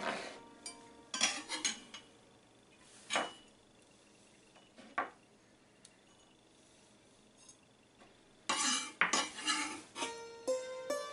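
Chef's knife knocking and scraping on a wooden cutting board as chopped garlic and chilli are gathered up and moved into a bowl: a few scattered knocks, then a run of scrapes near the end.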